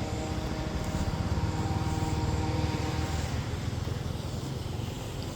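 Steady low engine rumble from traffic or an aircraft, with a faint whine that fades out about three seconds in.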